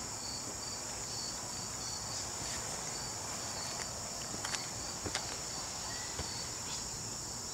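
Insects singing outdoors: a steady high-pitched drone with a second, pulsing chirp about twice a second, and a few faint clicks in the middle.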